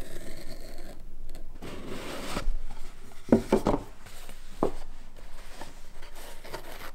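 A cardboard collectible box being opened by hand: the paper seal slit with a blade, the close-fitting lid slid off, and the foam insert rubbing against the cardboard.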